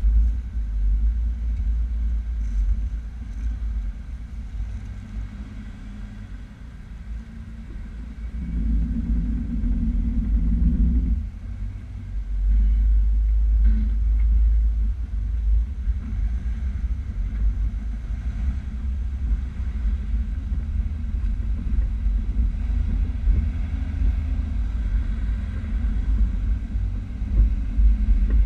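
Vehicle engine running with a steady low rumble, growing louder for a few seconds about eight seconds in and again about twelve seconds in.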